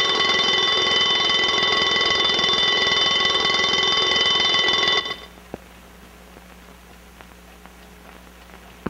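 Mechanical bell alarm clock ringing steadily, then cutting off suddenly about five seconds in. After that come only a faint low hum and a couple of small clicks.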